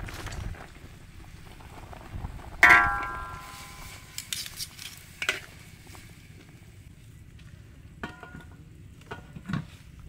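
Metal tongs clanking against a metal wok while a slab of pork belly is lifted out. There is one loud ringing clang about two and a half seconds in, then lighter clinks and taps, with a couple of short ringing knocks near the end.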